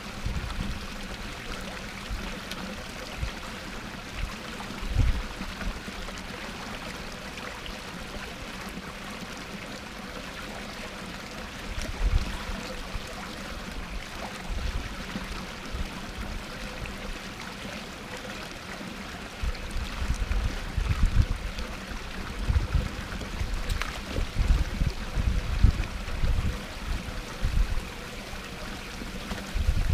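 Small garden-pond waterfall splashing steadily into the pond. Irregular low rumbling bumps come and go over it, a few early on and many more in the second half.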